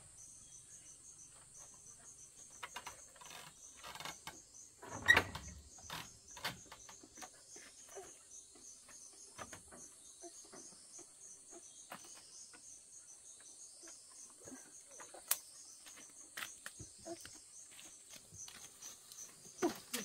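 Insects chirping steadily in a high, pulsing drone, with scattered knocks and clicks of handling. A loud thump comes about five seconds in.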